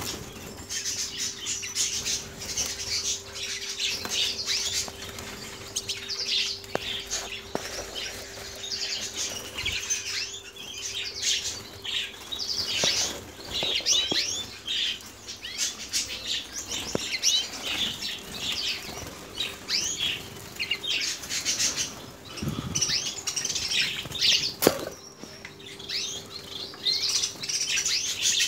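A cage full of canaries, red mosaic birds among them, fluttering their wings and flapping about the perches while many of them chirp and twitter at once, with a faint steady hum underneath.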